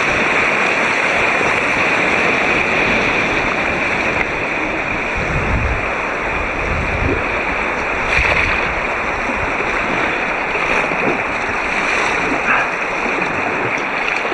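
Rushing whitewater of a river rapid around an inflatable kayak: a steady, loud hiss of water, muffled by a waterproof camera housing, with a few low thumps a little past the middle.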